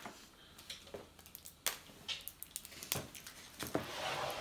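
Scattered light clicks and rustling of small toy packages being handled and unwrapped, with a longer crinkle near the end.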